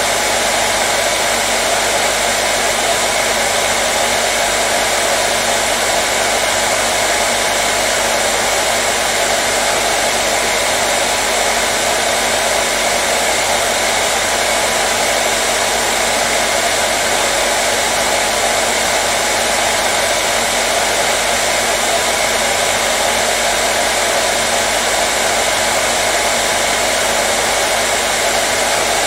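Hair dryer running continuously, a steady even blowing hiss with a faint motor hum and no change in speed.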